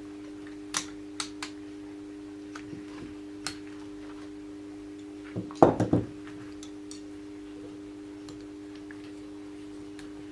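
Loose nickel-cadmium battery cells being handled on a workbench: a few light clicks, then a cluster of louder knocks about halfway through, over a steady electrical hum.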